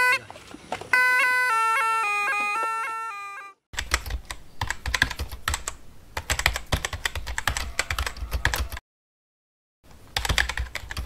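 A snake charmer's reed pipe plays a stepped melody, broken off briefly near the start, for about three and a half seconds. Then a fast run of clicks like keyboard typing goes on for about five seconds, stops, and comes back briefly near the end.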